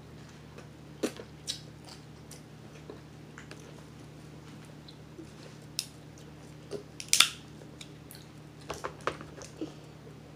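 Crab-leg shells cracking and snapping as they are broken apart by hand: a scatter of short sharp cracks, the loudest about seven seconds in and a quick cluster of several soon after, over a faint low steady hum.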